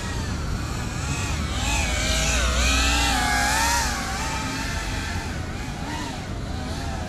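GEPRC CineLog35 ducted 3.5-inch FPV quadcopter flying, its motors and propellers whining. The pitch bends up and down every second or so as the throttle changes, and the drone is louder and hissier for a stretch in the middle.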